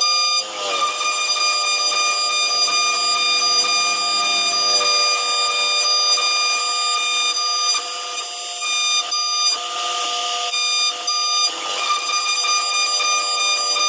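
CNC router spindle at about 18,000 rpm driving a single-flute carbide end mill through aluminium plate: a steady, high, multi-tone whine, with short rushes of cutting noise about ten and twelve seconds in.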